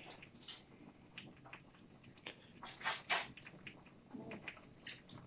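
Faint, scattered crackles and clicks of a boiled crab's shell being picked apart by hand, with chewing.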